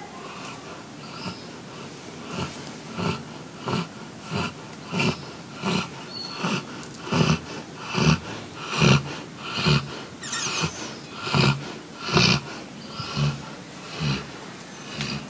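Sleeping golden retrievers snoring: short, wheezy snores repeating about every three quarters of a second, loudest in the middle.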